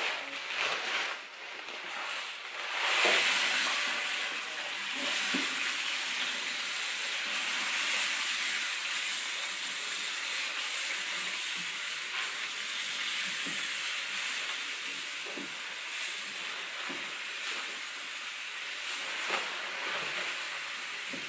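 Malt grain (rye, caramel and pilsner malts) poured from a sack into a large stainless steel pot of water at about 72 °C to mash in, with a wooden paddle stirring. It makes a steady hiss that grows louder about three seconds in.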